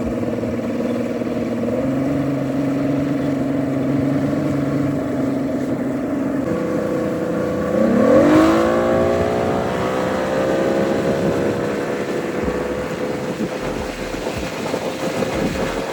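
Six-cylinder outboard motor running steadily under throttle, then about eight seconds in its pitch rises quickly as the boat accelerates, settling into a high steady note at speed. It pulls through without bogging, the bog having been cured by new spark plugs.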